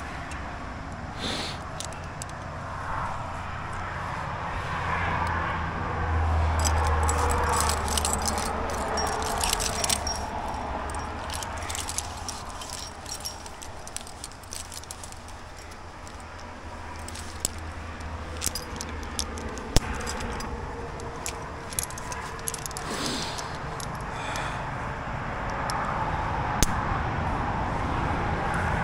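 Metal climbing carabiners and gear clinking and jangling in short, scattered clicks as they are handled at a bolted anchor, over a low steady rumble.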